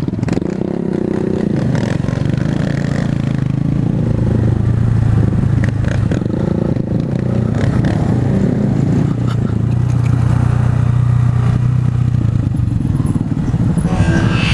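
Honda Grom's 125 cc single-cylinder engine running, its pitch mostly steady with small rises and dips.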